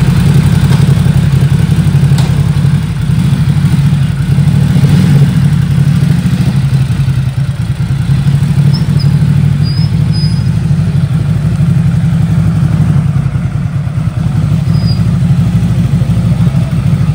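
Ducati SuperSport's twin-cylinder engine running steadily just after being started, loud and even throughout.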